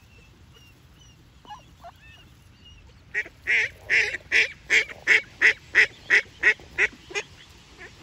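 Mallard hen giving a rapid run of about a dozen loud quacks, roughly three a second, starting about three seconds in.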